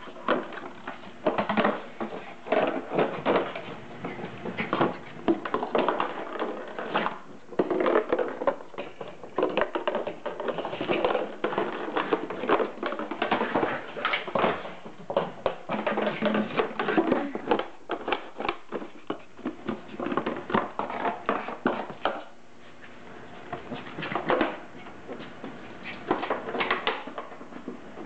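Empty 2-litre plastic bottle crackling and clattering on a wooden floor as a puppy bites, pushes and chases it, in irregular bursts of clicks and crinkles with a short lull near the end.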